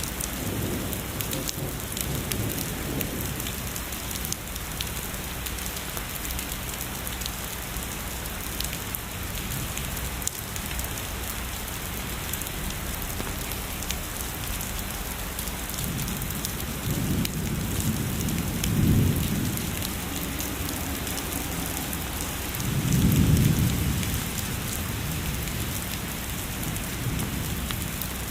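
Heavy rainfall falling steadily, a dense hiss with fine pattering drops. Distant thunder rumbles low twice in the second half, the later rumble the louder.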